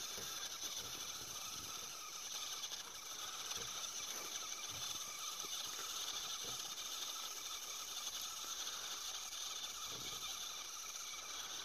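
Radio-controlled truck's electric motor and gears running with a steady high whine as it drives on the dirt track.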